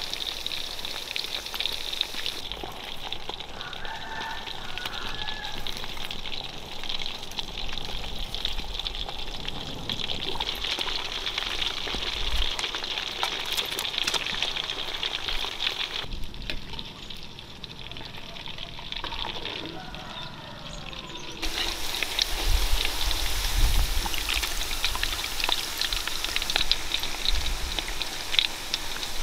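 Chicken pakoda pieces deep-frying in hot oil: a steady sizzle dense with fine crackles. It gets louder about two-thirds of the way through, with a few low knocks.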